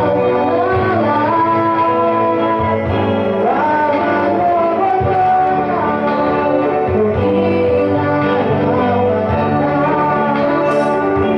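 Girls singing a gospel song into a microphone over a musical accompaniment, with held, gliding notes and no breaks.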